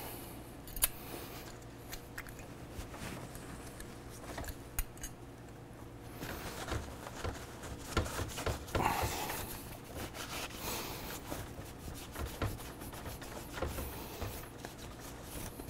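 A cloth shop towel rubbing and scrubbing over a soapy motorcycle brake caliper, an irregular scratchy rubbing with scattered small clicks as the caliper is handled.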